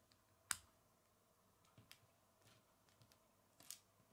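Plastic Lego bricks clicking as a small piece is pressed onto a model: one sharp click about half a second in, a few faint clicks of handling, and another clear click near the end.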